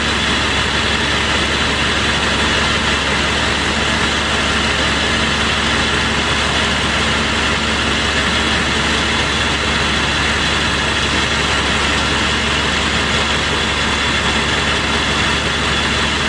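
A fire engine's diesel engine running steadily at pump speed, a constant drone with a hiss over it.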